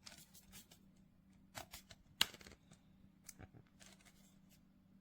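Faint handling noises: a scatter of light clicks and rustles, with one sharper click a little after two seconds in, over a low steady hum.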